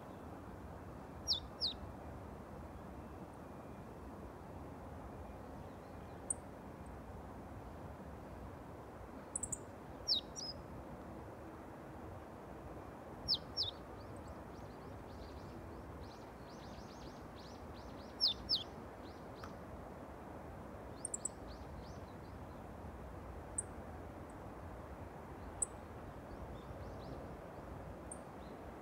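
Meadow bunting giving short, sharp high calls every few seconds, often as quick pairs of notes, over a steady low background noise.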